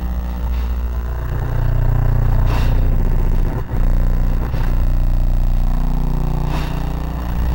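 Improvised electronic noise music: a dense, steady low rumbling drone with hiss above it. It is broken by two sharp clicks and a momentary dropout near the middle.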